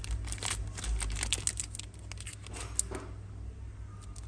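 Rapid small clicks and taps of Zippo lighters and their metal cases being handled, thickest in the first two seconds and then sparser.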